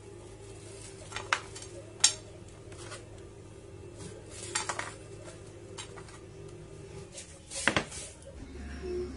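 Crockery clinking and knocking on a wooden table as plates and a small saucer are handled and set down: a few sharp clinks spread through, with the loudest cluster of knocks near the end. A steady low hum runs underneath.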